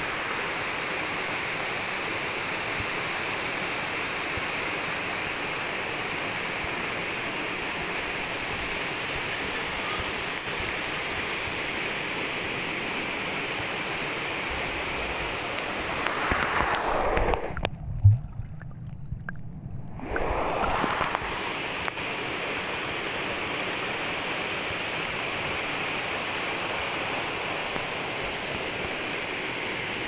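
Steady rushing of water from a waterfall and stream. About two-thirds of the way through it swells with splashing as the phone is dipped into the pool, goes muffled for about two seconds with a low thump while the microphone is under water, then comes back as it surfaces.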